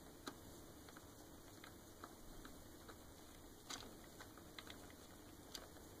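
Faint, scattered clicks and ticks of a small screwdriver driving screws into the plastic gearbox of a Roomba 550 brush module, with one louder click a little past halfway.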